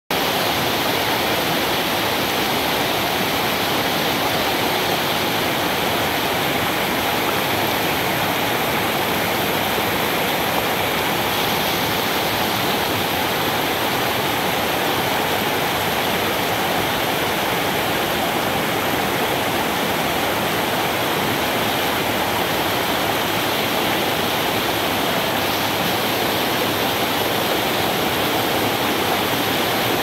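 A cascading mountain waterfall rushing over boulders, a steady, loud, unbroken rush of falling water.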